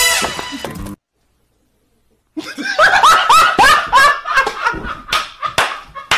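A loud noisy burst that cuts off suddenly about a second in, then after a short silence a person laughing hard in a run of short, rising bursts, with a few sharp smacks near the end.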